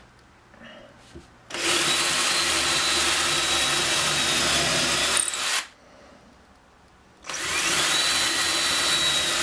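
Milwaukee cordless electric drill boring pilot holes through wood, running steadily for about four seconds, stopping, then spinning up again with a rising whine about seven seconds in for the second hole.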